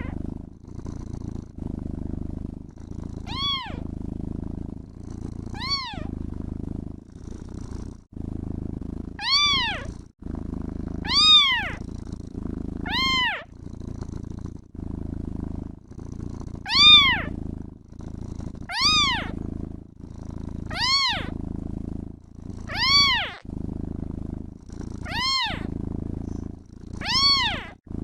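Kitten meowing over continuous purring: about eleven short, high-pitched meows, roughly one every two seconds, each rising and then falling in pitch, while the low purr runs on underneath.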